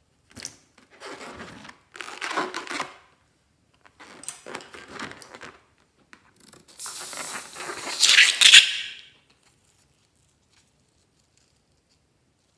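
Scissors cutting through a rubber balloon in a series of rasping cuts. The last, around 8 seconds in, is the loudest.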